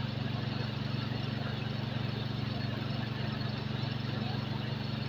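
Small engine-driven water pump running steadily, a constant low hum, over the rush of water pouring down a small rock cascade.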